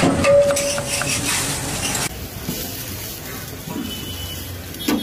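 Knife chopping tomatoes in quick knocks against a board, then, about two seconds in, a hot dosa griddle sizzling with a steady hiss as a block of butter is rubbed across it.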